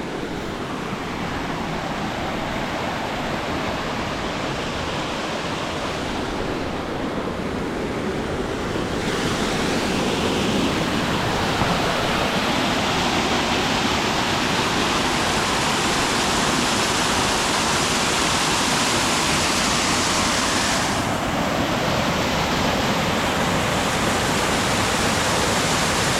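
Small mountain waterfall, full of water, rushing as a steady noise that grows louder and brighter about nine seconds in.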